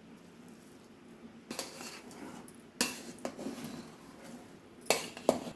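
Metal spoon scraping and clinking against a metal cooking pot while mixing cooked rice. About five sharp clinks, starting about a second and a half in, with soft scraping between them.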